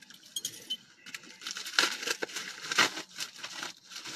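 Plastic mailing bag crinkling and tearing as it is pulled open by hand, a rapid crackly rustle that is light at first and busiest from about a second and a half in.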